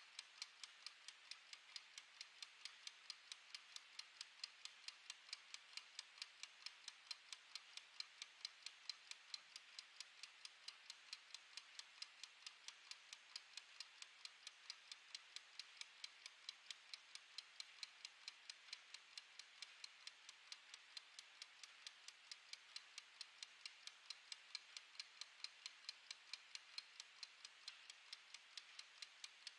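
Faint, quick, even ticking of a wind-up mechanical kitchen timer's clockwork as it counts down.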